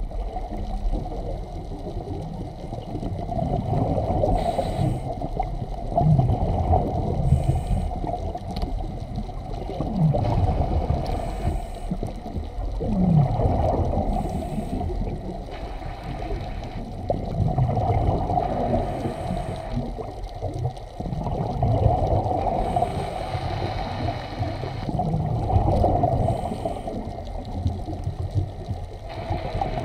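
Underwater sound recorded on a diver's camera: a low, gurgling rumble of scuba breathing and exhaled bubbles, swelling and fading every few seconds.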